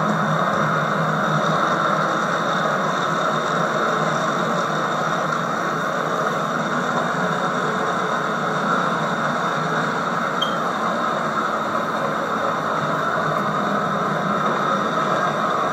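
Steady whirring rumble of HO-scale model trains running on the layout's track, with tape hiss over it.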